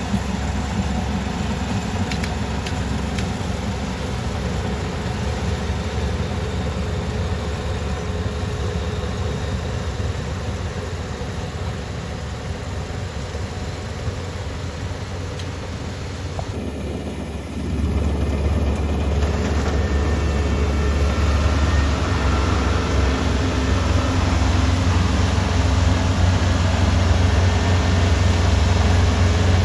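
Kubota ER470 combine harvester's diesel engine running steadily with a deep drone. About two-thirds of the way through it briefly drops, then comes back louder.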